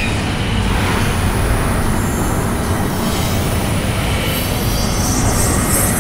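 Cartoon sound effect of combined elemental energy beams streaking through the air: a steady rushing noise over a deep rumble, with the hiss growing brighter about four seconds in.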